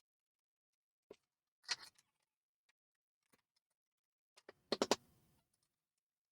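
Sparse workshop handling noises: a single click about a second in, a short scrape, then a quick run of sharp knocks with a brief ring near five seconds, as small hard parts or a hand tool are picked up and set down.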